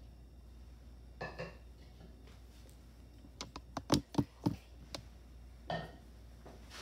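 A wire whisk and a measuring cup clinking and knocking against a stainless steel mixing bowl of batter: two soft knocks about a second in, a quick run of about eight sharp clinks between about three and a half and five seconds in, and one more near the end.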